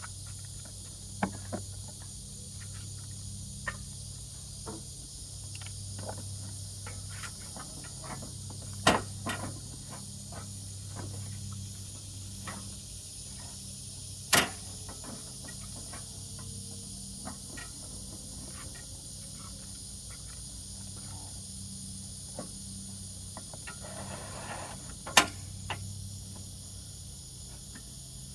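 Scattered clicks and sharp knocks of hand work on a riding mower's seat safety switch and wiring, three of them much louder than the rest. Under them run a steady low hum and a steady high insect-like chirr.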